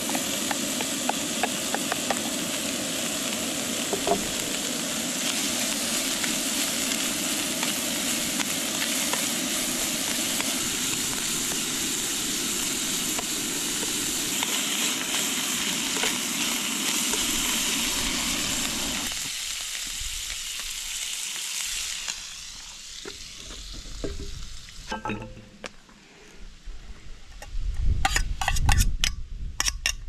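Food sizzling steadily in a frying pan, with a few light clicks. The sizzle dies away about two-thirds of the way through, leaving scattered knocks and a low rumble near the end.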